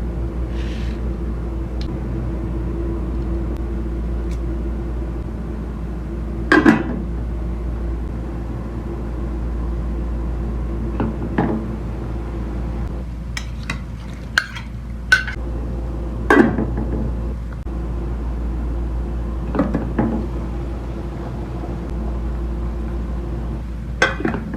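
Metal cookware and utensils clinking and knocking irregularly, about ten times, during food preparation, over a steady low hum.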